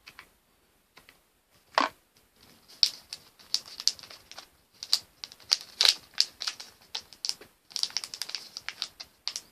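Disposable e-cigarette packaging being handled and opened by hand: irregular crinkling and clicking of plastic and card, with one sharper knock a little under two seconds in.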